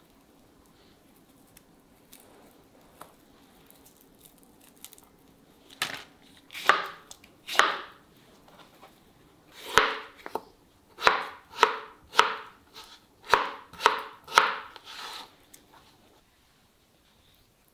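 A chef's knife cuts through roasted beetroot, each stroke ending in a knock on a plastic cutting board. There are about a dozen cuts, starting about six seconds in and coming faster after ten seconds.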